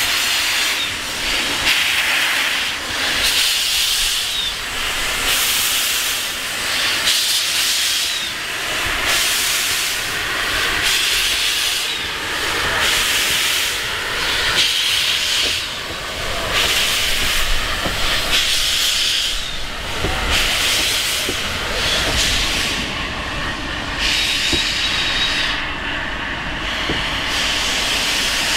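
South African Railways Class 26 'Red Devil' steam locomotive moving slowly with its cylinder drain cocks open, blowing steam in rhythmic hissing bursts of about one a second with each piston stroke.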